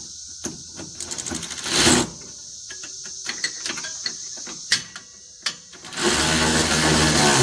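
Bolt being run down with a 13 mm ratchet: bursts of rapid clicking and scattered metal knocks, then a louder, steady mechanical whirr for over a second near the end.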